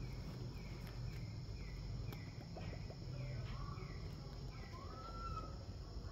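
Outdoor ambience: a steady, high insect drone with a bird repeating short falling chirps about twice a second, and a longer call about five seconds in.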